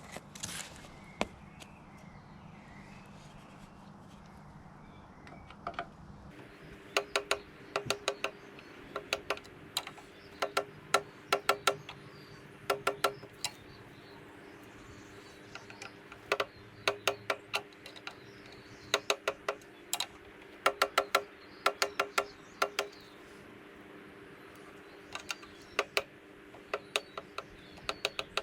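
Cylinder mower blades ticking against the bottom blade as the cylinder is turned by hand: sharp metallic clicks in quick bursts, starting about six seconds in and recurring throughout. This is the sound of the reel being set close to the bottom blade.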